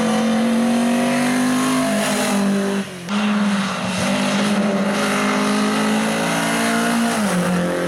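Classic rally cars' engines held at high revs on a hillclimb run: one car's steady engine note breaks off about three seconds in, then another car's engine picks up, its pitch falling near the end as it comes off the throttle.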